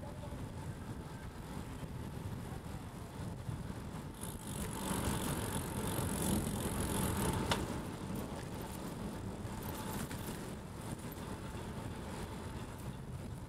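Crossbike rolling along a city road, with a steady low rumble of road and wind noise. A passing motor vehicle swells up with a hiss from about four seconds in and fades by about eight seconds, with a single sharp click near the end of the swell.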